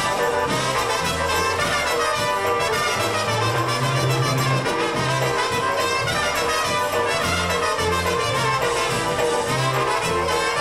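A live polka band playing, with trumpets leading over a bass line that steps back and forth between low notes.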